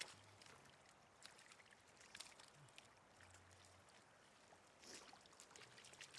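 Faint splashing in ankle-deep floodwater as rubber boots shift and a hand grabs at fish, in scattered short splashes.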